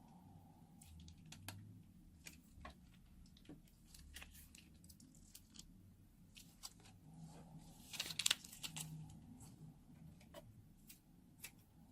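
Slime being piped and handled, giving scattered small sticky clicks and crackles, with a denser run of crackles about eight seconds in.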